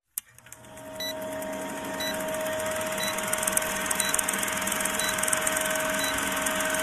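Old-film countdown sound effect: a film projector's rapid clatter and crackle over a steady hum, with a short high beep once each second as the numbers count down. It fades in over the first second.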